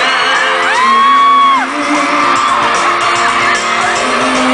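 Live K-pop music over an arena sound system, with fans screaming over it; one long, high scream rises and falls about a second in.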